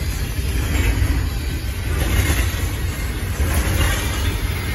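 Double-stack intermodal train of container well cars rolling past: a steady rumble of steel wheels on the rails.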